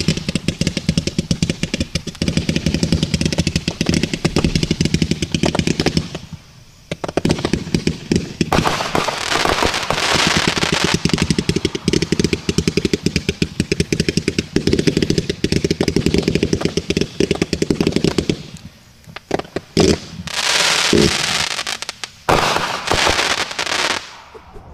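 World Class Double Bubble 500g multi-shot firework cake firing a rapid, continuous string of shots, with a brief pause about six seconds in. Near the end the shots thin out into a crackle finale of crackling bursts.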